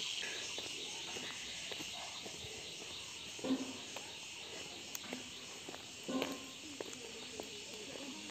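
A steady, high-pitched chorus of insects that slowly fades, with the crunch of footsteps on a gravelly road and a couple of brief, faint voices in the distance.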